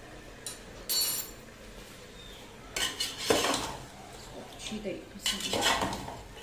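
A metal spoon and spatula clink lightly against an aluminium pressure cooker twice, then the spatula scrapes and stirs mutton pieces and ground spices in the pot in two spells.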